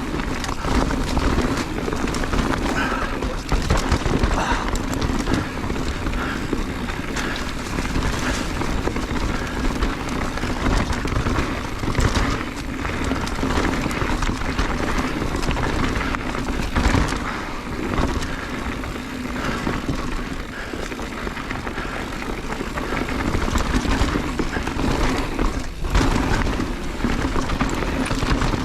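Mountain bike running fast downhill over a rocky trail: tyres rumbling and the bike rattling and clattering over rocks, with steady wind rushing over the microphone.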